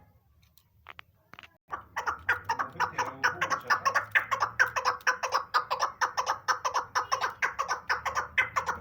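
Chukar partridge calling: a fast, even run of chattering notes, about five a second, starting a couple of seconds in after a few faint clicks.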